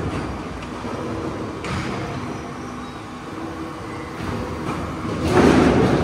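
Pezzolato firewood processor running, its conveyors carrying split firewood along to the grading screen: steady mechanical noise that grows louder about five seconds in.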